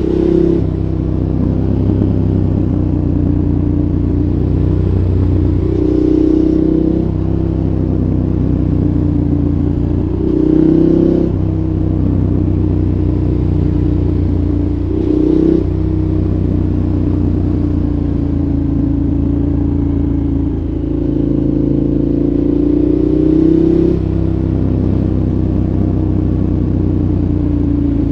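KTM 1190 Adventure's V-twin engine through a Giannelli exhaust, running steadily under way. The engine note swells briefly a few times, about six, ten and fifteen seconds in, and rises again for a longer stretch near the end.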